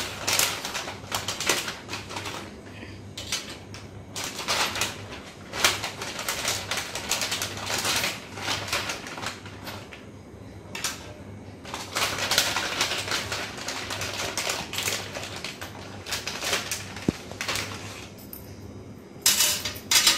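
Crinkling and rustling of a plastic packet being handled and rummaged through, in irregular crackly bursts. Near the end come a couple of louder sharp knocks as small parts are set down on a glass tabletop.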